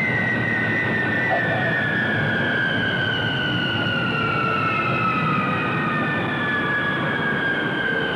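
Four Pratt & Whitney J57 turbojets of a Boeing KC-135A as it passes overhead and lands: a steady roar with several high whines that fall slowly in pitch as the aircraft moves away.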